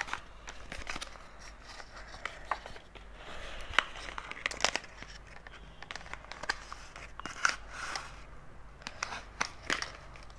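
Cardboard and paper packaging being handled as wired earphones are worked out of their box: irregular rustling and crinkling with scattered small clicks and scrapes, the sharpest click a little over a third of the way in.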